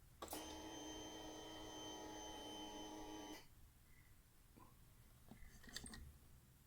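Quiet steady electric buzz with several fixed tones, lasting about three seconds, as the scooter's ignition is switched on with the new battery fitted; a few faint clicks follow.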